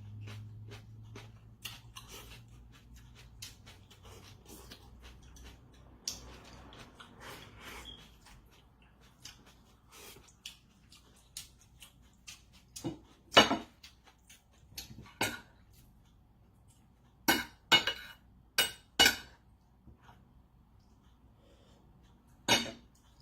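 Eating utensils clinking against dishes in a scattered series of sharp clinks, louder and closer together in the second half.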